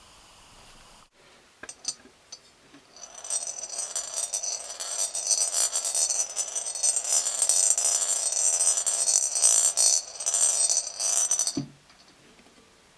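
A few clicks, then a gumball rolling and rattling down a toy gumball machine's plastic spiral track for about eight seconds, ending with a knock as it drops out.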